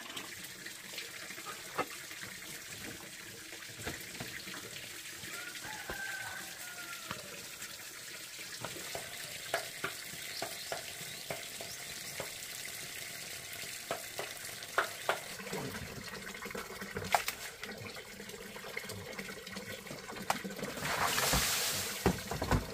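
Quiet outdoor ambience: a steady faint hiss with scattered small clicks and a brief chirp about six seconds in. Near the end, a short rush of water sloshing or being poured in a plastic basin.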